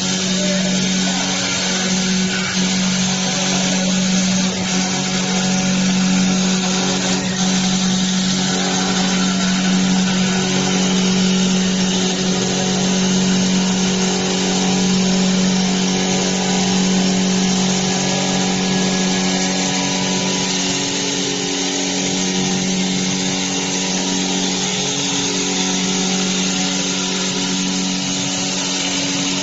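CNC wood lathe running steadily while turning a wooden workpiece: a constant hum with a dense hiss over it.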